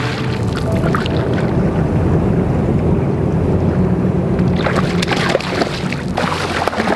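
A hooked pink salmon splashing at the surface as it fights on a fly line, over a steady low rumble. Short sharp splashy sounds come about five seconds in.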